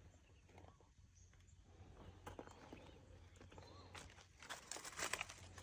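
Near silence, with faint scattered ticks and rustles over a low steady hum, a little busier near the end.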